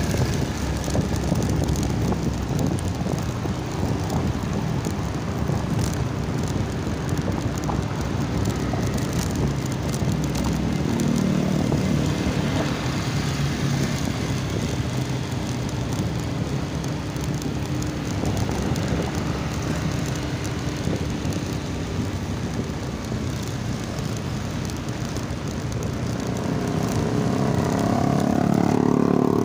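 Motorbike engine running steadily while riding along a paved road, with road and wind rumble; near the end an engine note rises and grows louder.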